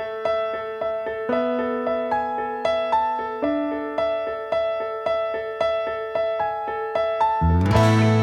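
Keyboard playing an instrumental intro, a steady pattern of single decaying piano notes about twice a second. Near the end a fuller accompaniment with a heavy bass joins in and the music grows louder.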